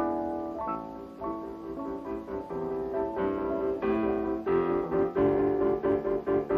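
Piano music, a melody over chords, which turns into steadier repeated notes and gets a little louder about two-thirds of the way in.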